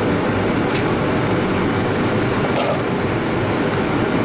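Steady low roar of a professional kitchen's ventilation and running equipment, with a faint click or two.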